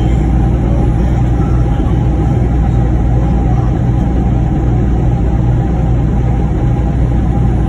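Truck engine and tyre road noise heard inside the cab while cruising on a highway: a steady, unchanging low drone.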